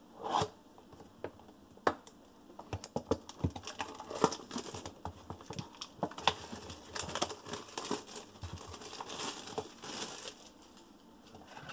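Plastic shrink-wrap being slit with a blade and torn off a cardboard trading-card box: scattered scratches and clicks, then dense crinkling of the plastic, busiest in the second half.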